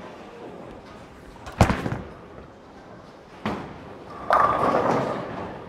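A Storm Super Nova bowling ball thuds onto the lane about a second and a half in, and a second sharp thud follows about two seconds later. Near the end, bowling pins crash and clatter for about a second as the ball strikes them.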